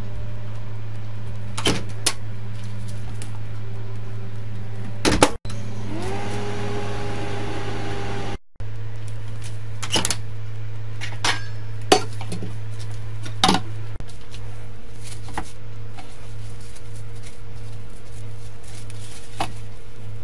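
Microwave oven running with a steady low hum. A few sharp clicks and knocks sound over it, the loudest about five seconds in.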